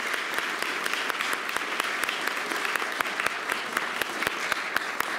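A small audience applauding: many hands clapping in a steady, dense patter throughout.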